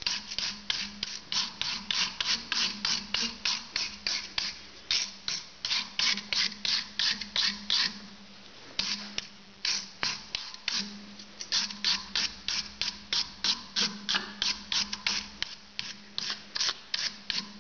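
Hand wire brush scrubbing back and forth over an old Craftsman screwdriver's plastic handle held in a vise, a quick even scrape about three strokes a second, with a short pause about eight seconds in. The bristles are scouring off the white coating that builds up on these old handles.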